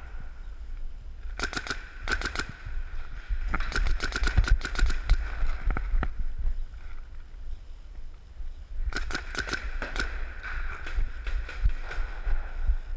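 Paintball markers firing in rapid semi-automatic strings: a run of sharp pops that thickens a few seconds in, then a second quick burst about nine seconds in, echoing in a large hall.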